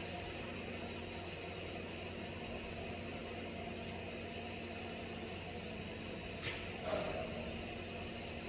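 TIG welding arc on stainless steel, hissing steadily over a constant low electrical hum, with a couple of brief small sounds near the end.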